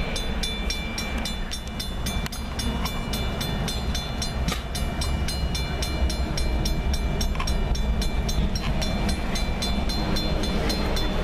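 Freight train's intermodal flatcars, some of them empty bare tables, rolling past with a steady low rumble, heard from inside a car. Over it a railroad crossing bell rings steadily, about three strokes a second.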